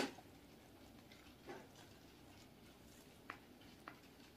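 Close-up mukbang eating sounds: a sharp mouth click at the start, then quiet chewing of soft bread with a few small lip and tongue clicks.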